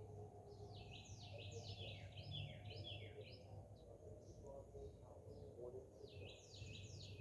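A small songbird chirping in quick runs of short downward-sweeping notes, in two bouts, the second starting near the end, over a faint low hum.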